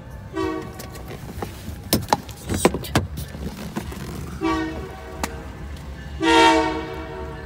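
Canadian Pacific locomotive air horn sounding three blasts, two short and then a longer, loudest one near the end. Between the first two blasts come several sharp knocks and clunks of a car door being opened.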